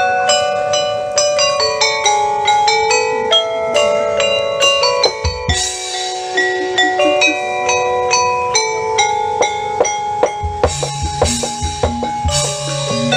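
Instrumental dance music: a melody of quick, short ringing notes, with a low beat and bass coming in near the end.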